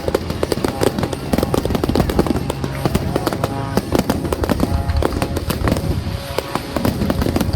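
Fireworks crackling in a dense, rapid string of pops, with music playing underneath.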